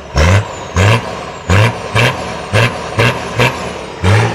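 Turbocharged Nissan Patrol 4x4 engine blipped hard about eight times in quick succession, each rev short and sharp. After several revs a high whistle falls in pitch as the new turbo spools down.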